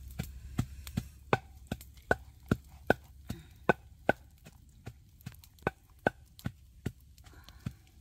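A series of sharp knocks, about two or three a second at an uneven pace, several with a short ringing note.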